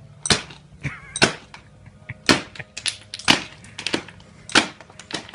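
Demolition hammer chiselling into a concrete patio: sharp cracking blows about once a second over a steady low hum.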